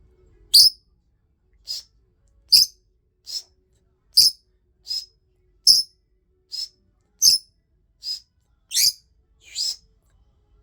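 Peach-faced lovebird giving a run of sharp, shrill, high-pitched chirps, about a dozen short calls a little under a second apart, louder and softer ones alternating.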